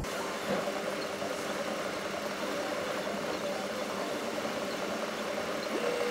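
Steady engine and road noise from a moving lorry, heard from inside the cab, with a brief rising tone near the end.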